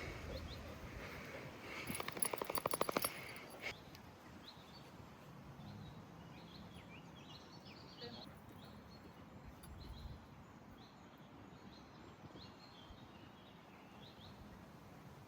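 Quiet outdoor ambience with small birds chirping in short high notes again and again. About two seconds in, a rapid rattling buzz runs for under two seconds.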